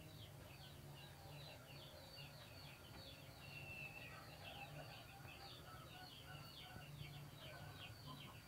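Near silence with faint small birds chirping in the background, a quick run of short, high, falling chirps several times a second, over a faint steady low hum.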